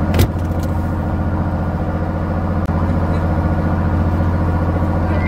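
Fishing boat's engine running steadily with a low, even hum, and a single sharp knock just after the start.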